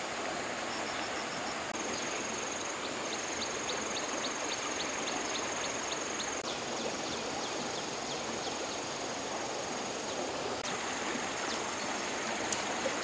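Steady rush of a fast-flowing, swollen stream. Over it is a high, thin insect trill that stops for several seconds in the middle, and about two seconds in there is a short run of high ticks, about four a second.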